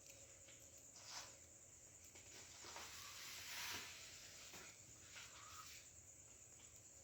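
Near silence: faint steady room hiss with a few soft handling noises, the most noticeable about three to four seconds in.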